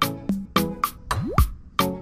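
Background music with a steady beat of evenly spaced drum strikes and pitched notes, with one rising slide about a second in.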